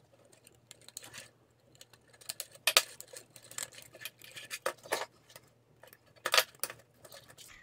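Hard 3D-printed plastic parts clicking and knocking as a small gear and axle are pushed into the gearbox of a plastic Strandbeest model. Scattered sharp clicks, two louder ones about three seconds in and a little past six seconds.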